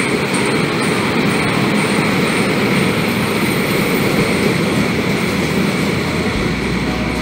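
Vintage FS Centoporte passenger coaches of a steam-hauled train rolling past on the rails, a steady rumble of wheels and running gear.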